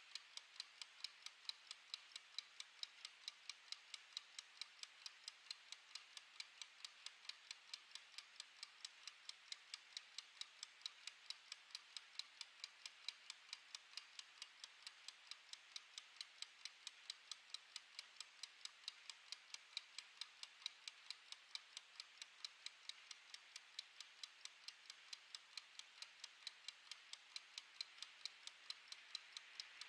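Mechanical wind-up kitchen timer's clockwork ticking, faint, quick and even at about three ticks a second.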